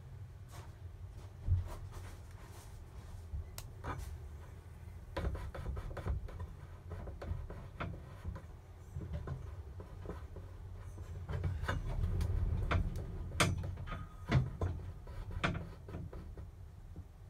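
Scattered knocks, clunks and rubbing from the gearshift rod of a 1971 Volkswagen Beetle being pushed from the rear end through the central tunnel, with a longer stretch of low rubbing about two-thirds through. The ungreased rod is hanging up in the tunnel rather than sliding through the new bushing.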